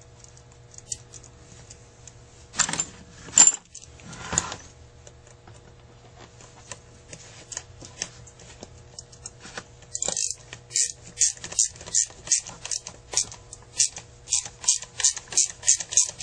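Small metal clicks and rattles from a hand screwdriver and a wire terminal being worked on a Carter AFB 9000 carburetor's electric choke, with a couple of louder handling scrapes a few seconds in. From about ten seconds in the clicks become a steady rhythm of roughly two a second as the tool is turned.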